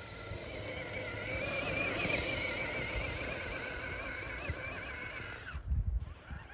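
RC crawler's small electric motor and drivetrain whining, the pitch wavering up and down with the throttle. Near the end it cuts out, with a few low thumps.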